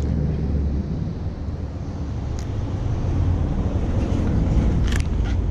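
Wind buffeting the microphone: a loud, steady low rumble, with a couple of short clicks near the end.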